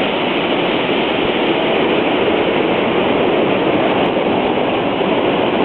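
Waterfall and creek in flood after days of heavy rain: a loud, steady rush of water.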